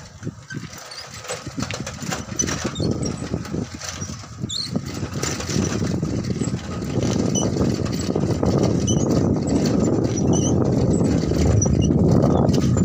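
Wind buffeting the microphone on a moving vehicle, with the vehicle's engine running underneath. It grows steadily louder over the first half and then stays loud.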